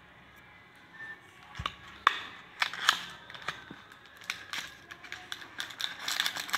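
Odonil air-freshener cardboard carton being handled and opened by hand: scattered clicks and scrapes of the card, growing into denser crinkling of the packaging near the end as the refill is pulled out.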